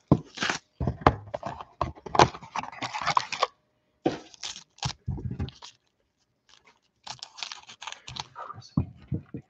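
Panini Obsidian football card box and its foil-wrapped pack being handled and opened: crisp rustling, crinkling and tearing of cardboard and foil wrapper, in bursts with a short pause about six seconds in.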